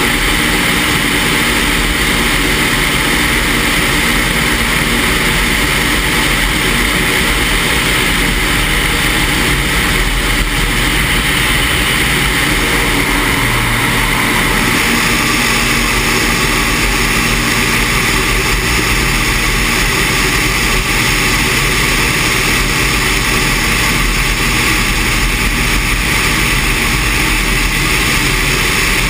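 Steady rush of wind across the microphone over the drone of a single-engine light plane's propeller engine in flight, the hiss shifting slightly about halfway through.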